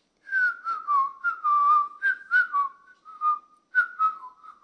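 A person whistling a tune through pursed lips: a string of short notes that slide up and down in quick phrases, starting just after a moment of silence.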